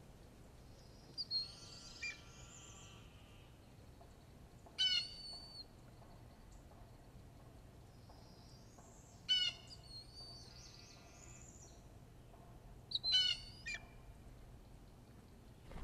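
Blue jay calling: four loud calls, about four seconds apart, while mobbing a bald eagle. Other small birds sing softly behind them.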